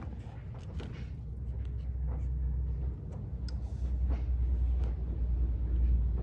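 A low, uneven rumble that grows louder, with a brief dip about three seconds in, and scattered light clicks and taps over it.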